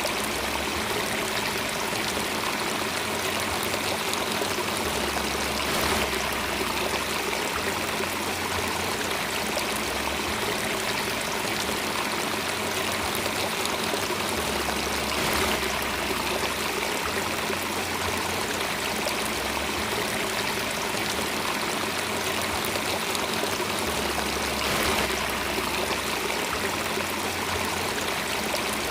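Water flowing steadily, an even rushing sound with faint swells about every nine to ten seconds.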